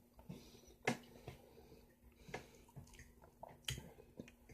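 Wet mouth sounds of eating juicy yellow honeydew melon off a spoon: soft chewing and smacking, with sharper smacks about a second in and again near the end.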